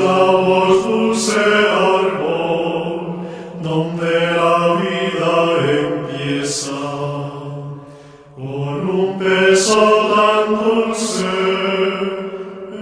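Gregorian chant sung by men's voices, phrase after phrase, with a short break between phrases about eight seconds in.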